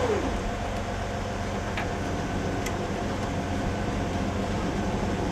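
Inside the cab of a Corvair-powered Ultravan motorhome under way, a steady metal-to-metal grinding comes from the front wheels. The cause is a front brake drum rubbing on its backing plate, which had been hammered back for suspension clearance.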